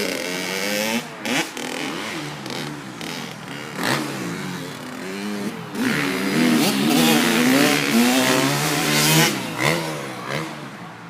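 Dirt bike engine running and being revved, its pitch rising and falling again and again, louder in the second half.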